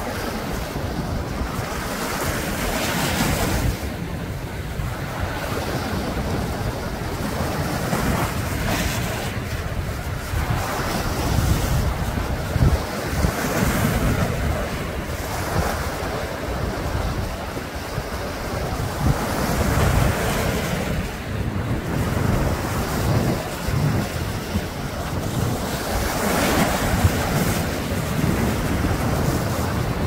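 Small sea waves washing over and draining off rocks along the shore, with the wash swelling and easing every few seconds.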